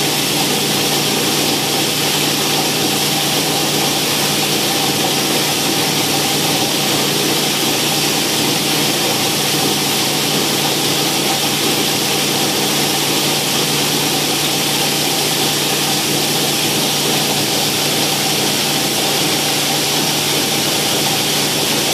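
Plastic granulator (PET bottle crusher) running steadily and loudly, chopping green PET bottles into flakes, with a steady motor hum under the grinding noise.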